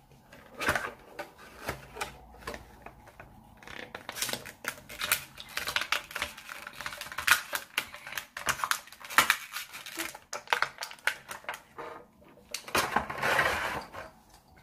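Clear plastic bag crinkling and crackling in the hands as a small toy egg is worked out of it. The crackles come thick and fast through the middle, with a louder rustle near the end.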